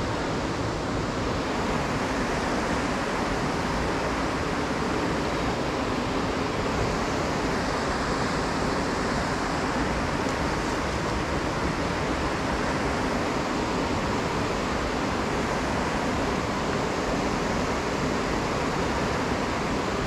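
Whitewater of the Youghiogheny River's Dartmouth Rapids rushing steadily.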